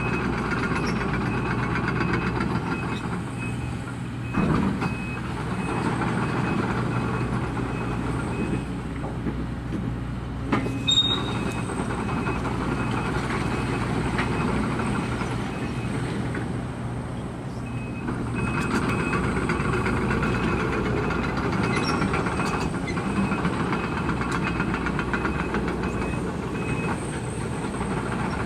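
Link-Belt 210 excavator's diesel engine running steadily under hydraulic load, with a high beeping alarm pulsing evenly through much of it. Metal clanks twice, about four seconds in and again about ten seconds in, as scrap and cylinder blocks are moved.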